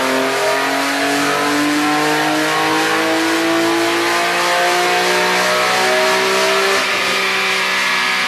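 BMW E46 M3's S54 straight-six at full throttle on a chassis dyno, breathing through a Supersprint exhaust with stepped headers and metallic race cats. The engine note rises steadily as the revs climb from about 5,000 to about 7,600 rpm.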